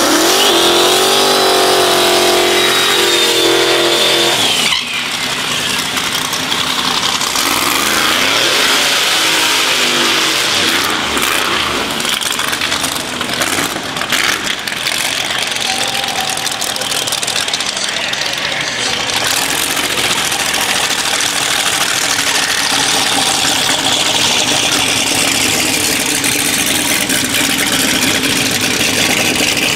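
Drag-racing car engines revving and running at full throttle, loud throughout. A high-revving engine with a high whine over it is held for the first few seconds, then the sound changes abruptly to a dense engine noise with rising and falling pitch.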